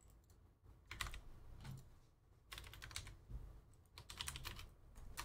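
Faint typing on a computer keyboard: several bursts of rapid keystrokes with short pauses between them.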